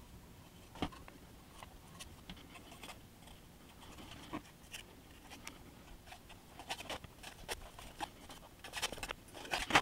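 Brush scrubbing weathering pigment powder onto the wood structure of an HO scale model building: faint scratching strokes and scattered light ticks, busier and louder near the end.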